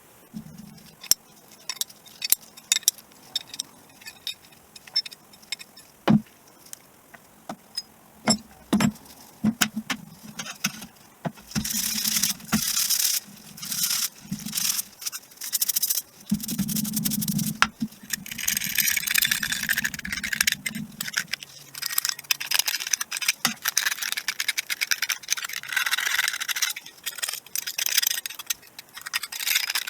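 Small metal driveshaft parts clinking and knocking as they are handled. After about ten seconds come repeated scratchy scraping and scrubbing strokes as the parts are cleaned.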